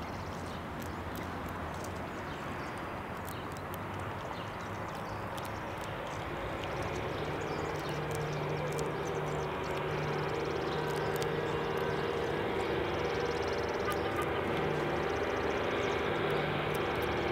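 Low hum of a distant vehicle engine over a steady background hiss, coming in about seven seconds in and growing slowly louder.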